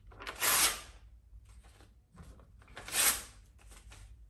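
A sheet of paper torn by hand, two loud rips, one about half a second in and the second about three seconds in, each lasting about half a second, with faint paper rustling between.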